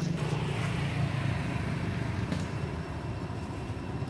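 A motor vehicle's engine running with a steady low hum, with a wider rush of noise that swells just after the start and fades over the next second or so.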